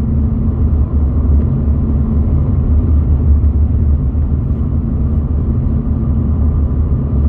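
Car driving on the highway, heard from inside the cabin: a steady low rumble of road and engine noise with a faint constant hum.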